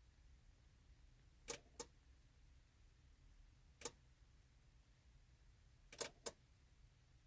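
Sharp electrical clicks from a 2014 Chevy Silverado with a no-crank fault: a quick double click, a single click, then another double click, spaced a couple of seconds apart. This clicking comes with the flickering dash and dead radio while the truck won't crank.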